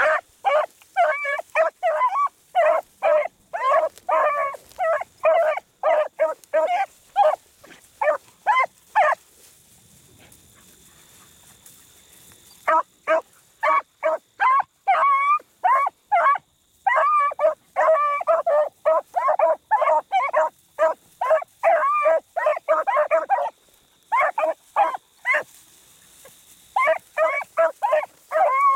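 Beagles baying in quick runs of short, high bays as they trail a rabbit through brush. The bays break off for about three seconds in the middle and twice more briefly near the end.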